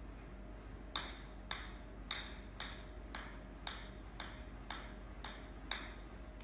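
A golf ball bouncing repeatedly on the face of a sand wedge: ten sharp ticks, about two a second, starting about a second in and stopping shortly before the end.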